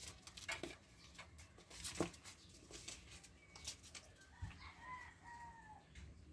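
Faint scuffling and several sharp taps as a cat chases down and catches a mouse on a tiled floor. About three-quarters through, a faint drawn-out pitched call lasts about a second.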